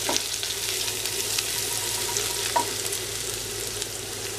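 Oil sizzling steadily in a nonstick pan as chopped green chilli, ginger and black pepper are sautéed, with a silicone spatula stirring and tapping a few times.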